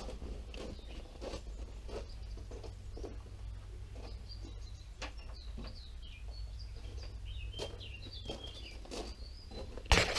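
Birds chirping faintly in short, gliding calls, with scattered light knocks and taps of timber being handled. A louder clatter close by comes right at the end.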